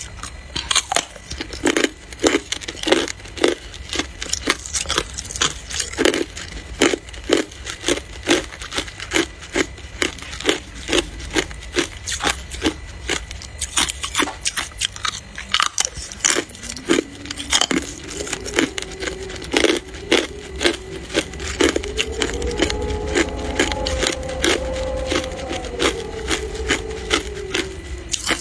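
Hard clear ice being bitten and crunched between the teeth: sharp cracking crunches, several a second. From a little past halfway a low tone that drifts up and down hums underneath.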